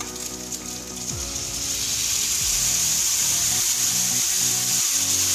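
Pork chops frying in a hot pan. The sizzle swells to a loud, steady hiss about two seconds in as the sauce is poured into the pan.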